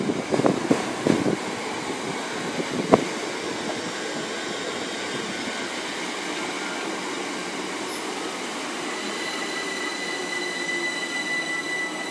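Great Northern Class 387 electric multiple unit rolling past: wheels click over rail joints in the first few seconds, with a sharp click about three seconds in. It then settles into a steady rolling sound, with a thin high wheel squeal from about nine seconds on.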